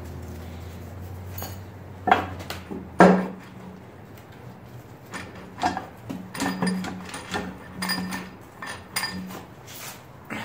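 Metal clunks and knocks as the cast-iron cylinder head of a Ford 7.3/6.9 IDI diesel is worked loose and lifted off the engine block. There are two loud knocks about two and three seconds in, then a run of smaller ringing clanks. A low hum under the first three seconds stops.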